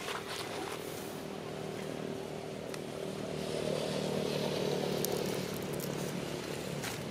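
A steady engine hum that swells about halfway through and eases off again, with a few faint clicks over it.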